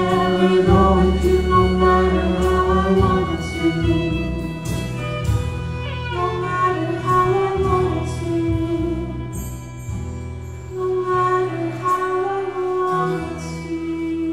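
Live Celtic folk band playing: fiddle, acoustic guitars, upright bass and drums, with singing over them.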